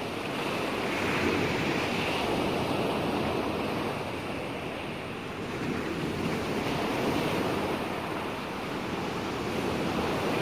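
Surf: small waves washing onto a sandy shore, a steady hiss with some wind in it, easing a little midway and then building again.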